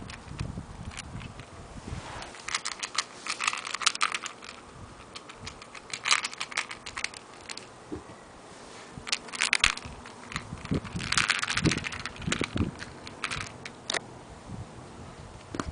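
Kittens scrabbling and tussling on a bedsheet: irregular bursts of scratchy rustling and claw clicks every second or two, with a few soft thumps.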